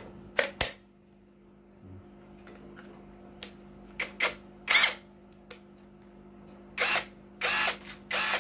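Sharp plastic clicks and knocks of a 48 V battery pack being slid onto and latched into a JLD cordless impact wrench, then handled. Several louder short rattling bursts of about a third of a second each follow later, the tool being turned over in the hands.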